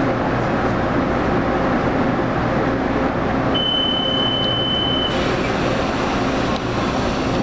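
Taiwan Railways local electric train running, heard from inside the carriage: a steady rumble of motors, wheels and rails. A high, steady thin tone sounds for about a second and a half a little past the middle.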